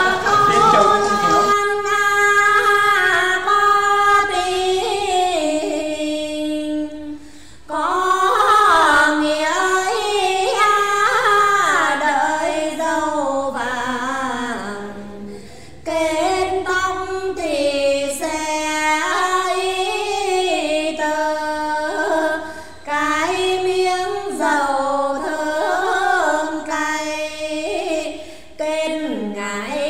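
Two women singing a Quan họ folk duet: long held, ornamented notes in phrases, with short breaks between phrases.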